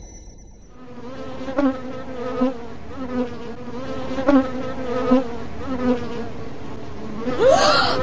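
Bee buzzing: a steady, wavering drone that fades in about a second in and grows louder. A rising, sliding sound breaks in just before the end.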